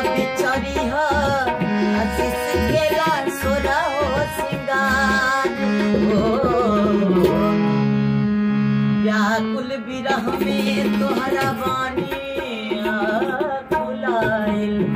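Music: a man singing a ghazal-style devotional song to his own accompaniment on a keyed string instrument, keys pressed with one hand while the other strums the strings, over a tabla-like drum rhythm.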